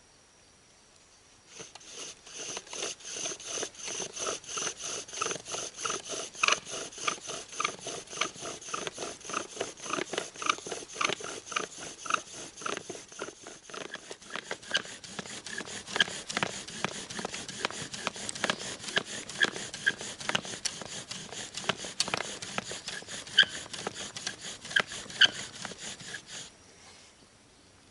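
Bow drill fire-making: a wooden spindle turning in a fireboard under a deer antler bearing block as the bow is sawn back and forth in steady rapid strokes, with a short squeak on each stroke. It starts about a second and a half in and stops shortly before the end. The set is not completely dried out, so the friction does not bring it to an ember.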